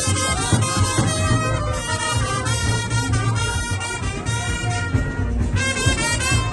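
Brass-band music: horns playing bright phrases over heavy bass.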